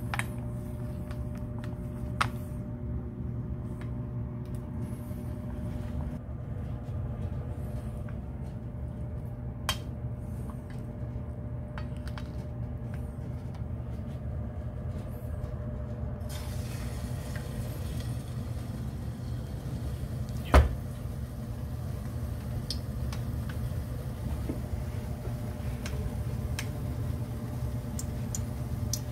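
Wooden chopsticks clicking against a steel bowl as tempura batter is whisked, over a steady low hum. About halfway through, a batter-coated fish fillet goes into hot oil and a steady frying sizzle sets in, with one sharp knock of a utensil on the pan or bowl a few seconds later.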